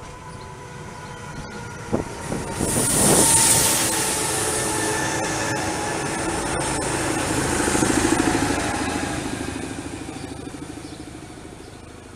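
A Núria rack railway electric train passing close by: the motors and wheels build up, are loudest as it goes past, then fade as it moves away. There is a sharp click about two seconds in, and a strong hiss as the front passes.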